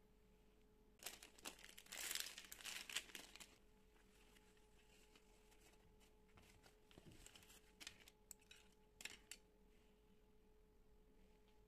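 Clear plastic packaging crinkling and rustling for about two and a half seconds as it is pulled off a cloth cutlery pouch, followed a few seconds later by a few light clicks and taps of wooden utensils being handled.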